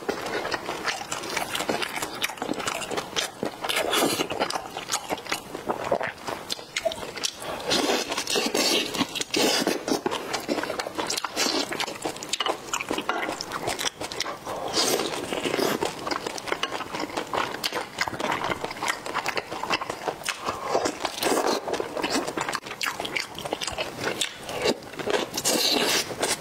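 Close-miked biting and chewing of a Korean-style rice-filled blood sausage (sundae) dipped in chili oil, heard as a dense run of small mouth clicks without a break.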